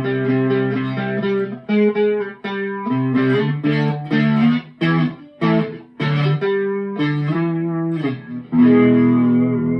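Electric guitar played on the neck pickup through a TC Electronic 3rd Dimension chorus pedal on its lightest setting, button 1: a phrase of picked notes and chords with several brief breaks between them.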